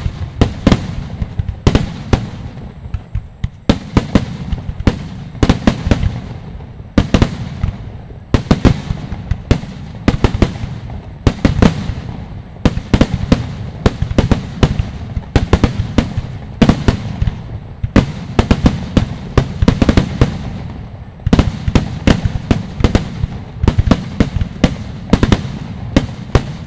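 Aerial fireworks shells bursting in rapid succession: sharp bangs a few times a second, each trailing off, over a continuous low rumble of overlapping reports.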